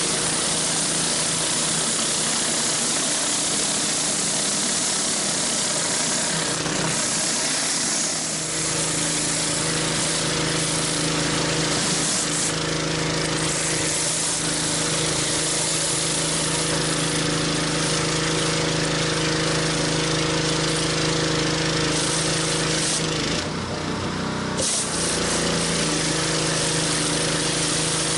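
A pressure washer's engine running steadily, with the hiss of water spraying from a 14-inch spinning-bar surface cleaner scrubbing concrete. About two-thirds of the way through, the engine note dips and wavers for a second with a short burst of hiss.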